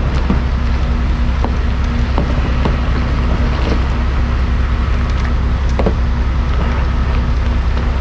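Dump truck's diesel engine running steadily at a low drone, heard from inside the cab, with scattered light clicks and knocks over it.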